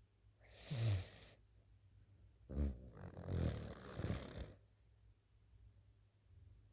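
A sleeping pet snoring: a short snore about half a second in, then a longer one in the middle.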